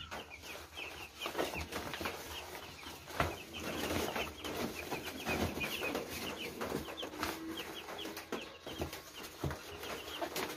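A box of young broiler chicks peeping continuously, many short high peeps overlapping, with paper bedding rustling and crinkling as it is handled.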